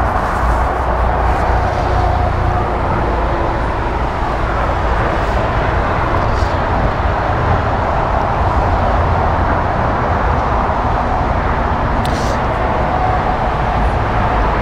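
Airbus A310 jet engines at taxi power, a steady rushing noise with a low rumble underneath.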